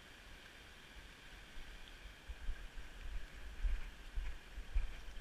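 Wind buffeting a small camera microphone in irregular low rumbles that grow stronger about halfway through, over a faint steady hiss.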